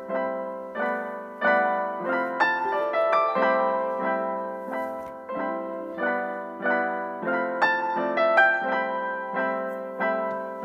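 Background piano music: repeated chords struck at a steady, gentle pace, each fading before the next.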